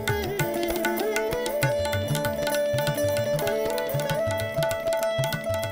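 Background music: an Indian-style instrumental, with hand-drum strokes and a gliding melody over a steady drone.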